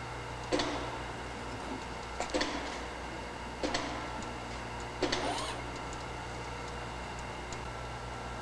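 A handful of light metallic clinks and knocks, some ringing briefly, as a turbocharger rotor shaft is slid back into its casing and bearings. A steady low hum runs underneath.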